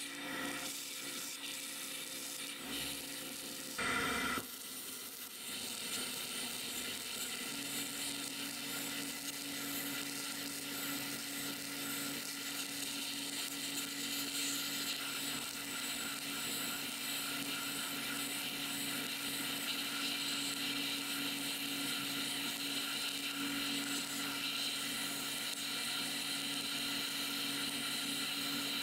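Sandblasting cabinet nozzle blasting rust off a steel axe head: a steady hiss of air and abrasive. There is a brief louder burst about four seconds in, and a low steady hum joins from about seven seconds on.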